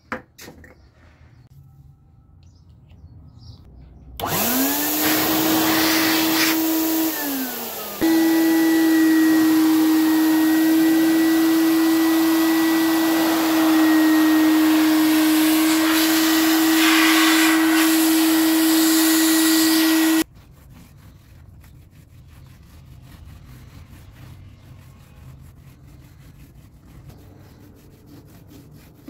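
Small handheld vacuum cleaner starting about four seconds in with a rising whine, dropping briefly, then running steadily with a high hum and hiss until it cuts off suddenly about twenty seconds in. Faint rubbing and handling follow.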